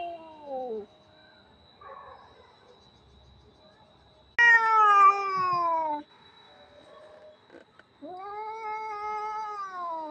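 Domestic cat meowing: three long, drawn-out meows. The first tails off in the opening second, a loud one starts abruptly about four seconds in and falls in pitch, and a third about eight seconds in rises and then falls.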